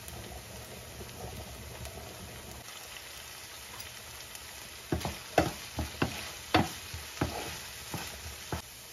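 Diced pancetta, onion, tomato and garlic sizzling steadily in olive oil in a nonstick frying pan. From about five seconds in, a spoon stirs the mixture, knocking and scraping against the pan in a quick series of sharp clacks.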